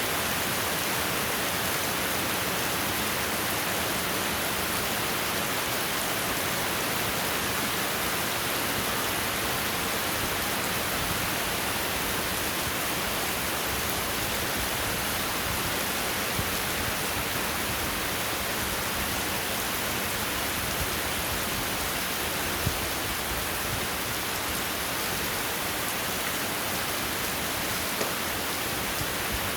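Steady rain falling, an even hiss with a few sharper drop hits in the second half.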